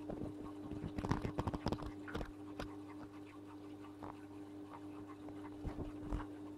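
Aquarium canister filter running with a steady low hum, with scattered clicks and knocks about a second in and again near the end.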